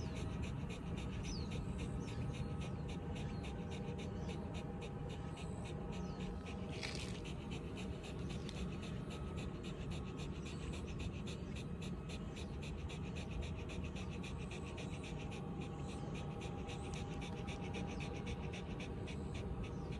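Shiba Inu panting with its mouth open and tongue out, quick even breaths several times a second, a dog cooling itself in the heat.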